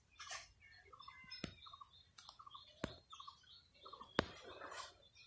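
Hen pecking at prey on the ground: sharp taps about every second and a half, with faint bird chirps in between.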